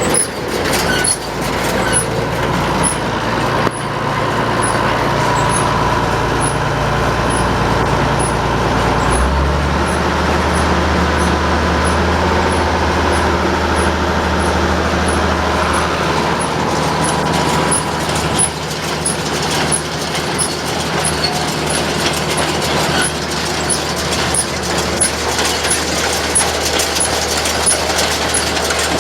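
New Holland 650 round baler running empty off a tractor's PTO on a test run, the tractor engine running steadily underneath. A faint, regular tick comes a bit more than once a second, and the low engine note shifts about nine seconds in.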